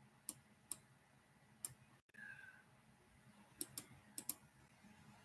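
Computer mouse clicking: about seven sharp single clicks, spaced irregularly, with two quick pairs in the last second and a half.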